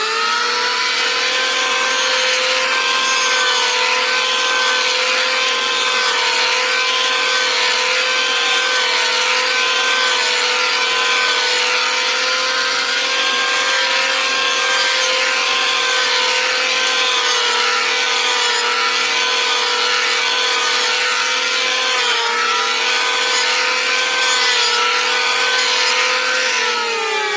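Electric woodworking power tool: its motor spins up at the start, runs at a steady high whine with a hiss of wood being worked, dips briefly under load, then winds down near the end.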